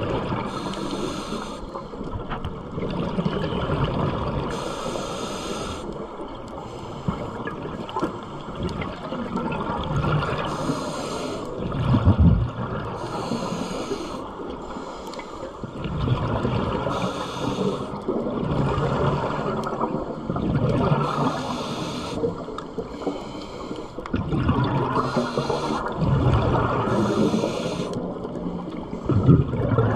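Scuba diver breathing through a regulator underwater: a short hiss on each inhale, then low bubbling as the exhaled air leaves the exhaust, about one breath every three to four seconds.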